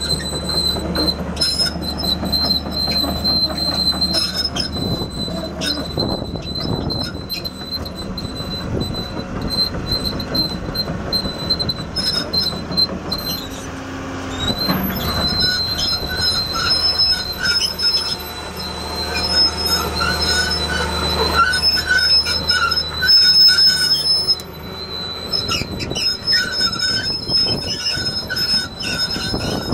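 A Case 9030 crawler excavator running on its Cummins 6T-590 5.9 L six-cylinder turbo diesel while it moves. Its steel track undercarriage squeals with long high-pitched tones and clanks throughout.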